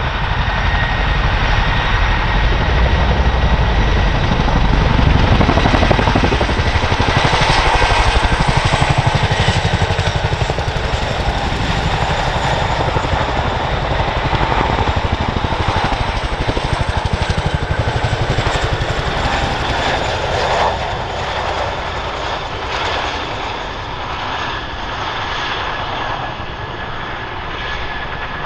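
Boeing CH-47 Chinook tandem-rotor helicopters taking off and flying past, their twin rotors beating rapidly with a steady high whine over it. Loudest about a quarter of the way in, then slowly fading as they move away.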